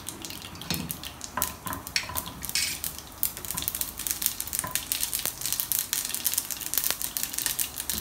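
Mustard and fenugreek seeds sizzling in hot oil in a nonstick frying pan, crackling with many quick pops: the first stage of tempering (tadka).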